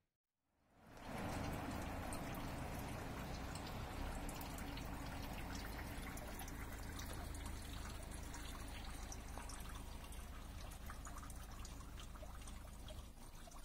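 Water trickling and dripping down a roadside drain: a steady splashing patter, fading up about a second in, with a low steady rumble underneath.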